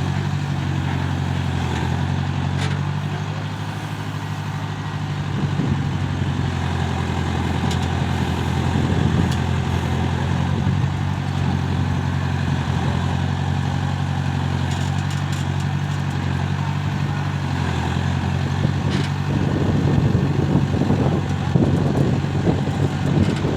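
Diesel engine of a backhoe loader or tractor running steadily, its pitch shifting a little partway through. There is some rattling and knocking in the last few seconds.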